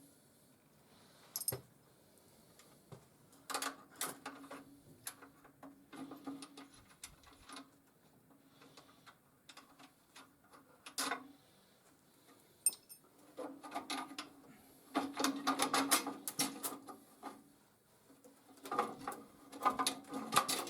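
Scattered light clicks and knocks, with denser clattering about two-thirds of the way in and again near the end; no engine is running.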